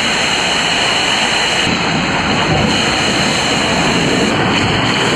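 Steady, loud rush of water and air on a water coaster slide.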